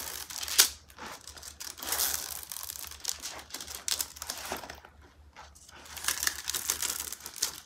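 Diamond painting canvas rustling and crinkling as it is lifted and rolled up by hand, in irregular bursts, with one sharp crackle about half a second in.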